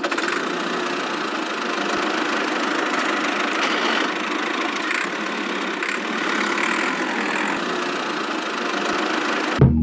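Small motor running steadily, as on a miniature DIY tractor.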